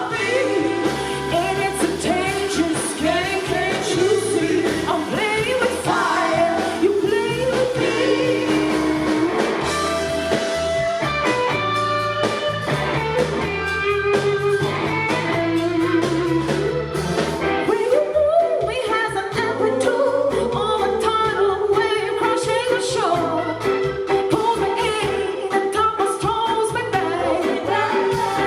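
Live blues-rock band performing, with electric guitar and a bending lead melody over a steady bass.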